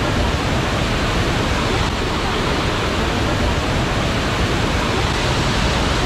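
A waterfall's steady rush of falling water, an even noise with no break or change.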